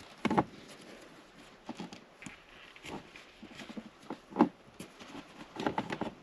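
Hands working a plastic shift boot retainer and the fabric shift boot onto a car's gear shifter: scattered light clicks, taps and rustles, the sharpest about half a second in and about four seconds in, with a quick run of them near the end.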